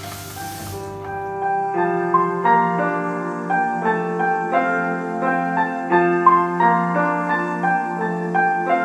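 Background music: a soft piano piece, a new note about every half second.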